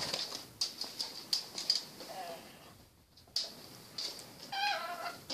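Rainbow lorikeet chattering in short, high chirps, with a wavering, whine-like call about four and a half seconds in.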